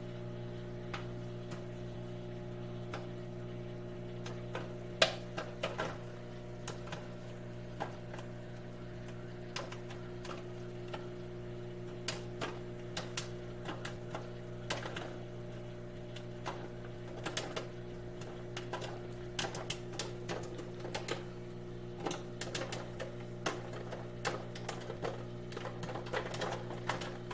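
Microwave popcorn popping inside a running microwave oven: sharp pops over the oven's steady hum. The pops are scattered at first and come thicker and faster from about halfway on as the kernels heat through.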